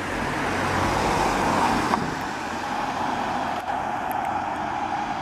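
Road traffic on a suburban road: cars and a van driving past, with tyre and engine noise. The closest pass is loudest about a second and a half in.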